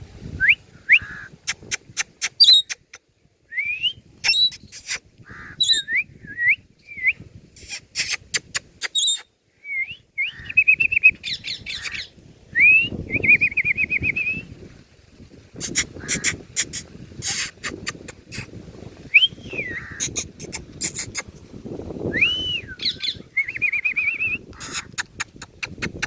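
Ring-necked parrot whistling and chirping: short rising whistles and warbling trills, repeated in bouts, with many sharp clicks in between.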